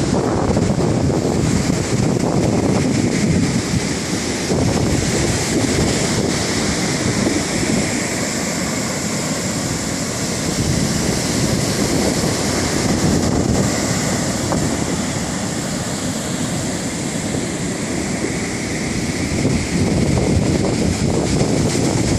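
Wind buffeting the microphone, with a steady rushing noise underneath that rises and falls in gusts.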